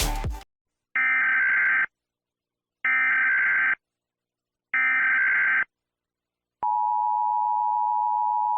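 Emergency Alert System tones: three identical short bursts of screeching digital data (the SAME header), about two seconds apart. About two-thirds of the way in, the steady two-tone EAS attention signal starts and holds.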